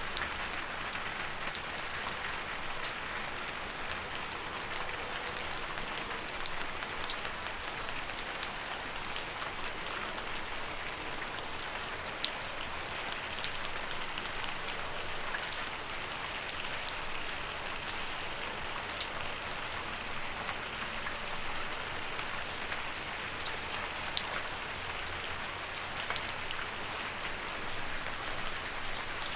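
Steady rainfall: a continuous hiss of rain with many individual drops ticking sharply on a hard surface, at an even level throughout.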